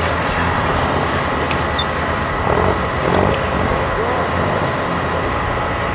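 Off-road 4x4 engines running steadily, with a constant hum and a thin, even whine over it.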